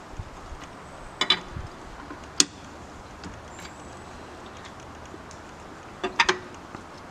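Hand tools for changing a truck tire, being handled: a few sharp metal clicks and clanks, one about a second in, one near the middle and a quick pair near the end, over a steady low background hiss.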